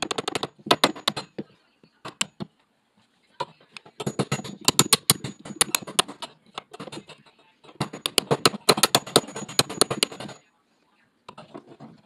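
Hammer tapping a cable staple into a wooden stud to hold down electrical cable: bursts of quick, sharp taps with short pauses between them.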